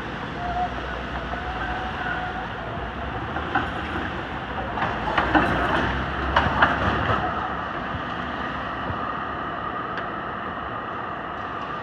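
Melbourne A-class tram rolling through a turn at an intersection, its wheels clacking over the track junctions in a run of sharp clicks partway through, with car traffic passing close by.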